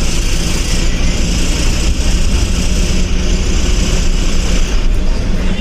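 Eicher bus's diesel engine running steadily at cruising speed, heard from inside the driver's cabin as a low, even hum under constant road and wind hiss.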